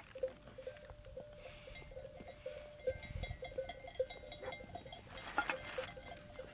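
Bells on a flock of sheep tinkling faintly and unevenly, several small rings a second. Short rustles come about a second and a half in and again near the end.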